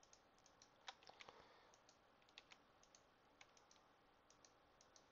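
Faint, irregular clicks of computer keyboard keys being tapped, about a dozen scattered presses over near silence.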